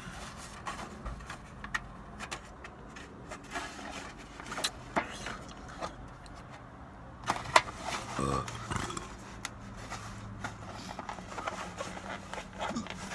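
Scattered clicks, crinkles and rustles of takeout food packaging being handled, with one sharper click about halfway through, over a low steady hum inside a car.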